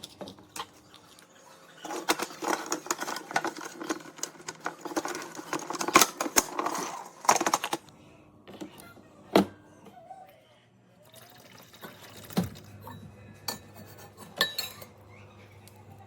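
Clatter and knocks of hard objects being handled. There is a dense run of rattling from about two to eight seconds in, then a few single knocks.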